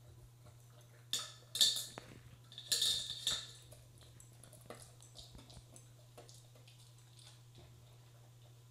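A dog eating dry food from a metal bowl: the bowl clinks and clatters in a few sharp bursts between about one and three and a half seconds in, with small ticks of chewing and kibble the rest of the time.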